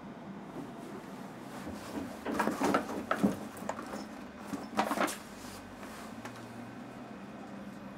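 Rustling and light knocks of a person shifting and turning over on a bed, in two short bursts about two seconds in and again about five seconds in.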